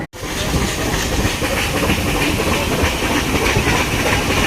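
Nilgiri Mountain Railway toy train running, a loud steady hiss with a busy rattle underneath. The sound cuts in abruptly after a split-second gap at the start.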